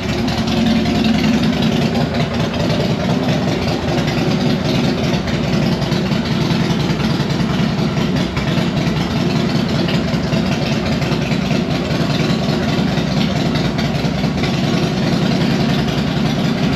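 2014 Harley-Davidson Heritage Softail's Twin Cam V-twin idling steadily on a freshly flashed Vance & Hines FP3 fuel map.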